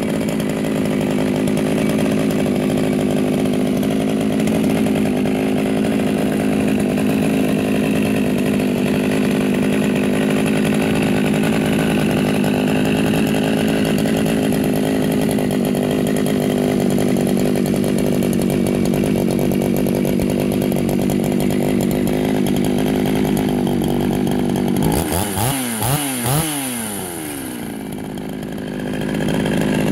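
Husqvarna 51 two-stroke chainsaw, built with an aftermarket ported cylinder and a custom muffler, idling steadily. About 25 seconds in the throttle is blipped several times, the engine revving up and dropping back, before it settles to idle again.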